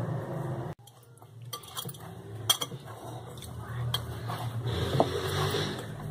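Pizza dough being kneaded by hand in a glass bowl: a soft pressing, rustling sound with scattered sharp clinks as the hand and bowl knock against the glass, over a low steady hum.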